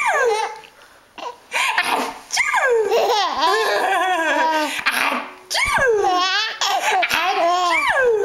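A young child laughing hard in repeated high-pitched bursts, after a brief pause about a second in.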